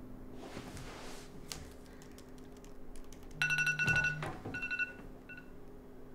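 Smartphone alert tone: a bright electronic chime about three and a half seconds in, with a low buzz under it, then two shorter repeats of the chime.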